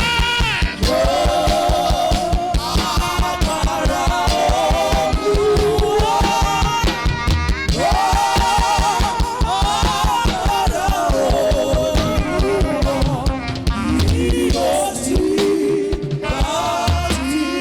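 Worship music: voices singing a held, wavering melody over a band with a steady, fast drum beat.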